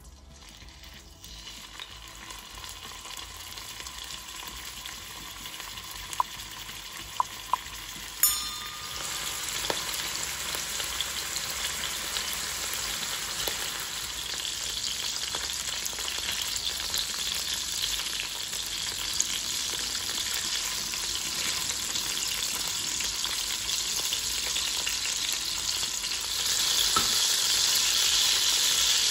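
Pork belly pieces sizzling in hot oil in a wok. The sizzle builds from faint to a strong, steady hiss after about nine seconds and grows louder again near the end. A few sharp clicks come around six to eight seconds in, one of them ringing briefly.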